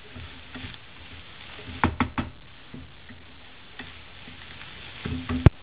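Wooden spatula stirring pohe in a pan, scraping and knocking against the pan: a quick run of three knocks about two seconds in, a few light taps, and one loud, sharp knock near the end.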